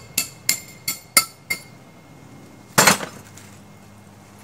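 Hammer striking a steel rebar stake into the ground, five ringing metal-on-metal blows about three a second, followed about three seconds in by a single louder clatter.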